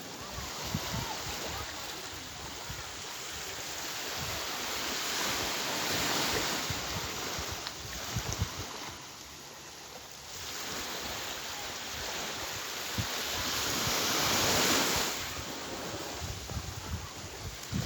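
Ocean surf: waves washing in and drawing back, the rush swelling and fading, with the biggest swell about three-quarters of the way through. Wind buffets the microphone throughout.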